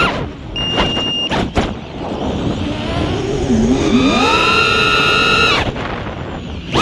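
FPV racing quad's brushless motors and 5-inch tri-blade props whining, heard from the onboard camera, with wind rushing over the microphone. The whine drops away as the throttle is chopped near the start, slides down and up mid-way through a manoeuvre, holds a steady high pitch, then cuts off again near the end.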